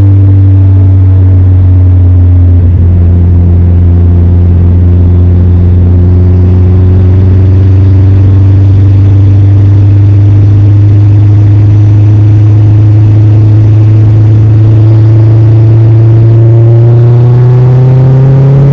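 Car engine running steadily under way, its pitch slowly rising over the last few seconds as the car accelerates.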